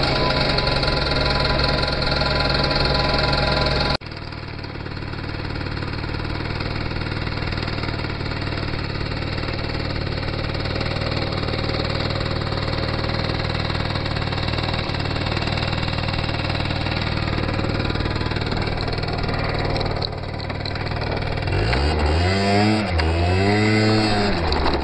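Small motor scooter engine running steadily with an even hum. About four seconds in the sound cuts abruptly to a different, steady engine noise, and near the end the engine revs up and down three times.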